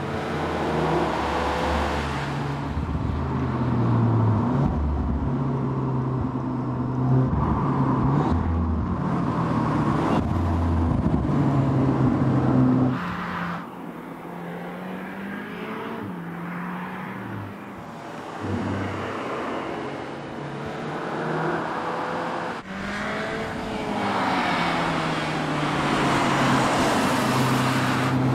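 Audi S3's 2.0 TFSI turbocharged four-cylinder engine under acceleration, its note climbing and dropping back in steps as it shifts through the gears. It comes as a run of short takes with sudden changes in level, with a quieter stretch about halfway through.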